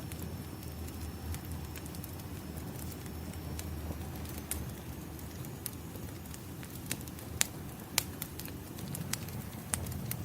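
Wood fire crackling: a low steady rumble of burning logs with scattered sharp pops and snaps, two of them louder in the second half.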